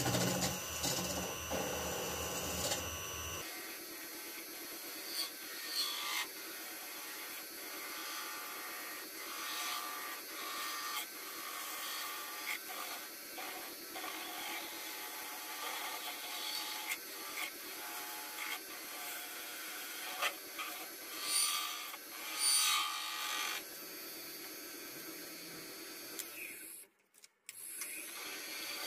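Hand-held turning tool cutting a spinning brass bar on a woodturning lathe: a continuous scratchy scraping of metal on metal with irregular sharper scrapes, a few brighter, higher ones about three-quarters through, then a brief dropout near the end.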